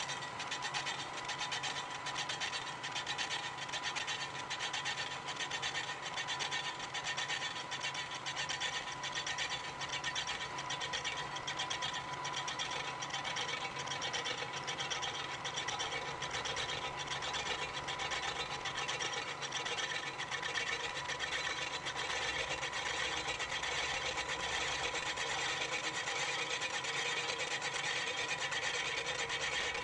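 Milling machine face-milling the cast-iron base of a drill press with a 2-inch, three-flute carbide insert face mill, sped up eight times. The cut is a fast, even rasping chatter with a steady whine over it.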